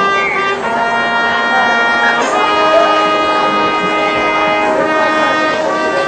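Marching band brass playing long held chords that change a few times.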